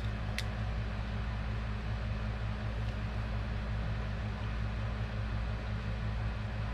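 Steady low machine hum with a faint hiss, unchanging throughout, with a light click or two just after the start.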